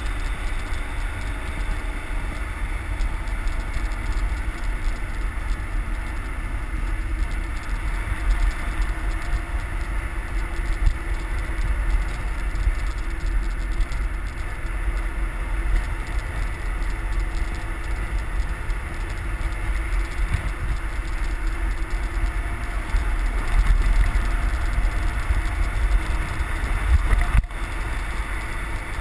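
Wind rumbling and buffeting on a bicycle-mounted camera's microphone while riding at high speed, over a steady rush of road and traffic noise with a faint engine drone.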